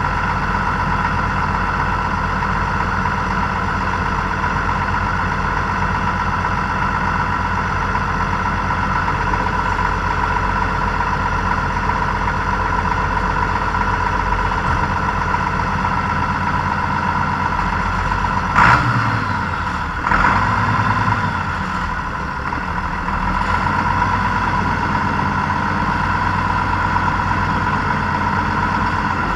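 Tractor engine running steadily, with a sharp clunk about two-thirds of the way through and a brief change in the engine note just after it.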